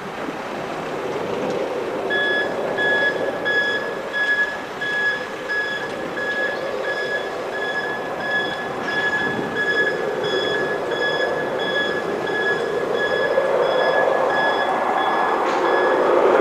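A high electronic beep repeating about two and a half times a second, starting about two seconds in and stopping just before the end, like a ground vehicle's reversing alarm. Under it runs the drone of the Beechcraft King Air 250's twin turboprop engines on approach, growing louder near the end.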